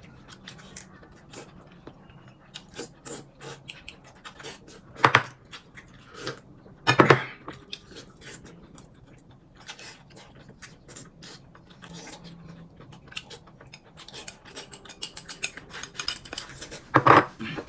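Eating at the table: chopsticks clicking and scraping against a porcelain bowl, with chewing and mouth noises. There are two louder knocks about five and seven seconds in. Near the end the clicks come thick and fast as food is shovelled from the raised bowl.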